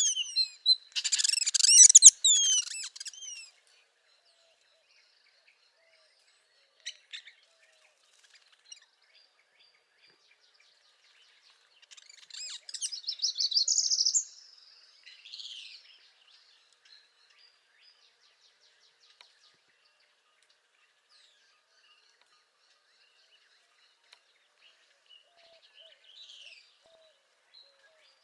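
Northern parula singing: a buzzy trill that climbs in pitch, heard twice, once at the start and again about twelve seconds in, with faint distant chirps in the gaps.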